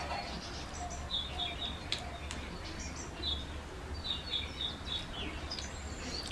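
Birds chirping in the background: short high chirps in little runs every second or so, over a low steady hum, with a few faint clicks.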